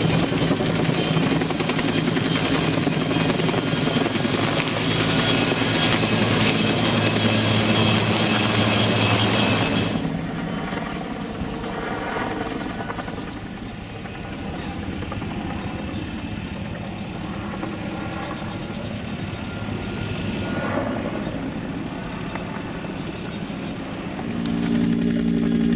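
UH-1 Huey firefighting helicopter: loud, close turbine and rotor noise while it hovers with its Bambi Bucket dipping in the water. About ten seconds in, the sound cuts abruptly to a quieter, more distant helicopter flying with the bucket slung below. Near the end it gets loud again with a steady low hum.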